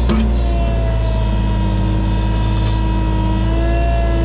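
Caterpillar mini excavator running steadily while digging a trench, a constant low engine hum with a whine above it that shifts slightly in pitch as the machine works.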